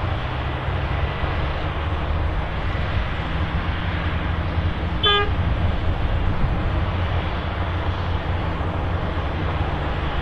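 Asphalt cold milling machine running steadily, its engine drone and cutting drum milling old runway asphalt. A single short horn toot about halfway through.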